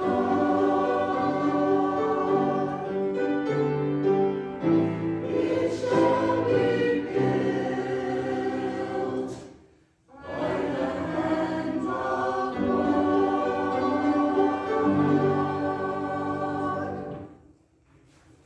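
Church choir singing the closing phrases of an anthem in held chords. The singing breaks for a moment about ten seconds in, then comes back and ends on a final chord shortly before the end.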